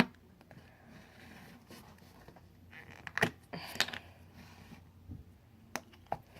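Small plastic slime containers being handled: a few sharp clicks and knocks spaced over several seconds, with faint scraping and rustling in between.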